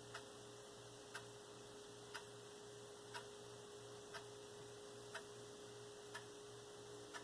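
Near silence with a faint tick about once a second, evenly spaced, over a low steady hum.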